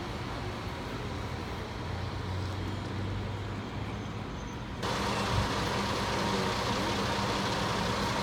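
Bus engine running with a steady low rumble. About halfway through, the sound steps suddenly louder and brighter, and a steady higher hum joins it.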